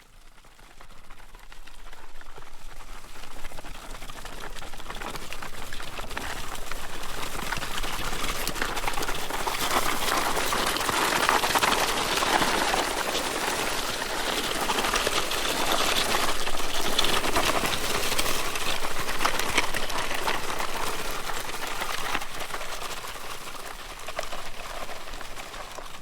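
An object being dragged across gravel: a continuous gritty crunching and scraping of stones that swells and eases, loudest in the middle, fading in at the start and out near the end.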